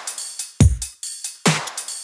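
Electronic background music with a steady drum-machine beat: a heavy kick drum a little more than once a second, with crisp hits in between.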